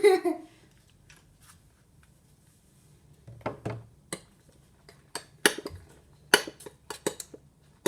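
A utensil clinking and knocking against a dish as slime ingredients are mixed: about three seconds in, a string of short, irregular taps begins and runs on.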